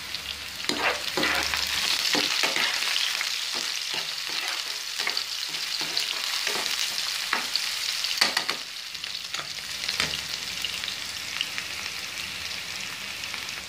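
Chopped onion, green chillies and curry leaves sizzling in hot oil in a nonstick frying pan while they fry toward light golden brown. A wooden spatula stirs and knocks against the pan in short strokes for most of it, and near the end the sizzle goes on mostly alone.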